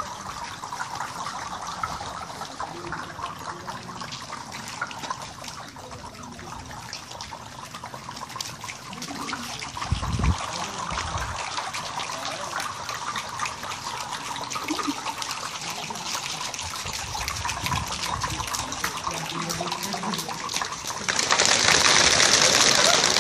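A crowd of people making the sound of rain with their hands: a steady pattering hiss of rubbed palms and many small clicks. About 21 seconds in it swells suddenly into a much louder downpour as they slap their thighs.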